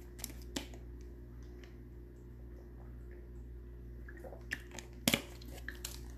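Steady low room hum with a few short clicks and taps: two near the start and a cluster about five seconds in, the loudest a quick double click.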